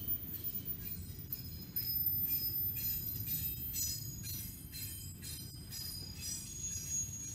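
Double-stack intermodal well cars of a CSX freight train rolling past: a low steady rumble of wheels on rail, with repeated metallic clatter and high, thin ringing tones from the wheels. The ringing is loudest from about two seconds in.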